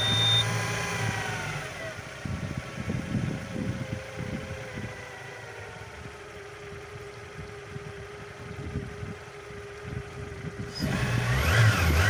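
Suzuki 140 outboard motor running just after starting, its revs settling to a steady idle. Near the end it is revved briefly by hand on the throttle. It runs evenly after a repair.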